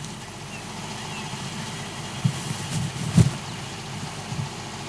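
Game-drive vehicle's engine idling steadily, with a few dull thumps about two and three seconds in.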